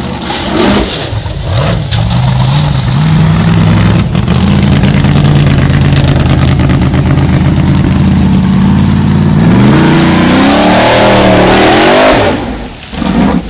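V8 formula offroad buggy engine revving and running on the throttle. From about two-thirds of the way through, the revs rise steeply at full throttle as the car climbs a steep dirt wall; this is the loudest part. The engine note then drops off suddenly about a second before the end.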